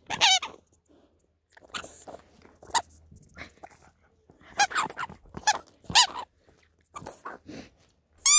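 A Pungsan dog chewing and gnawing a rope toy with a rubber bone, in irregular bursts of crunching with a few short high squeaks.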